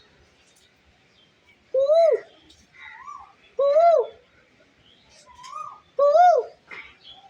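Asian koel (koyal) calling: three loud, arched half-second notes spaced about two seconds apart, with fainter, higher answering notes in between.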